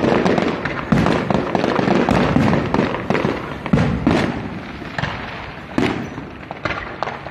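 Aerial fireworks bursting overhead in a dense run of crackles and bangs. Louder booms come about a second in, near four seconds and near six seconds, and the barrage thins toward the end.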